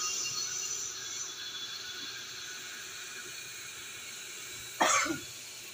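Bench brake lathe running with a Toyota HiAce brake disc turning on its arbor, the cutting bits giving a high steady hiss that fades over the first second or so as the refacing pass is made. A brief loud sound cuts in about five seconds in.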